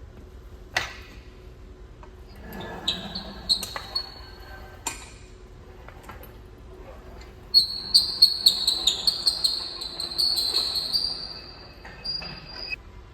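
Clicks and knocks from metal parts being handled, then a quick run of sharp, high-pitched squeaks from about eight to eleven seconds in, with two more near the end. The squeaks are like something rubbed hard on a freshly cleaned cast-iron engine block.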